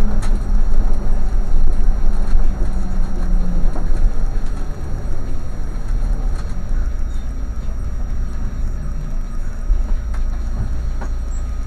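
Vehicle's engine and road rumble, heard from on board, dropping as it slows to a stop. A low hum fades out about three and a half seconds in, leaving a steadier, quieter engine rumble at standstill.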